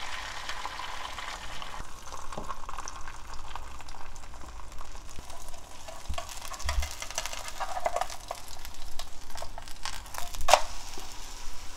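Thin sheet of egg white sizzling as it fries in oil in a non-stick frying pan. A metal spatula scrapes under it, with scratchy clicks thickening near the end and one sharp knock against the pan.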